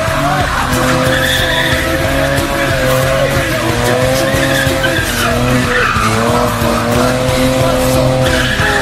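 Car doing a burnout: the engine is held at high revs, its pitch wavering up and down, while the rear tyres spin and squeal against the tarmac.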